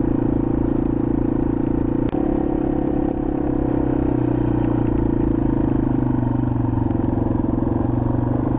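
Yamaha TW200's single-cylinder four-stroke engine running steadily as the bike rides along a dirt trail, with a brief click and momentary dip about two seconds in.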